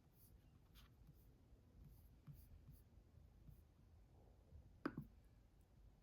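Faint, scattered light taps and clicks, with one sharper click about five seconds in.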